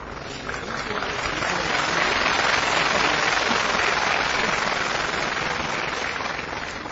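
Arena audience applauding, swelling about a second in and dying away near the end.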